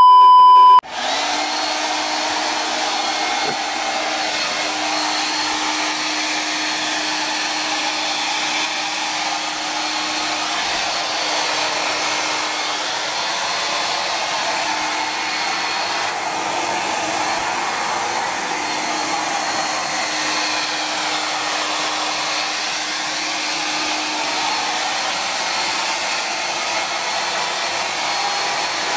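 Handheld hair dryer running steadily with a constant hum, blowing on a pair of wet boxer shorts to dry them. A short, loud beep sounds at the very start, just before the dryer noise comes in.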